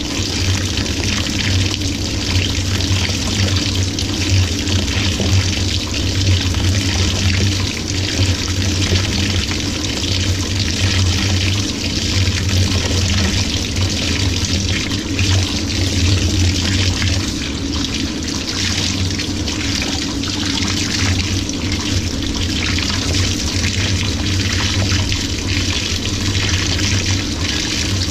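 Water pouring steadily into the drum of an LG 18 kg top-load washing machine as it fills for a delicate cycle, with a steady low hum underneath.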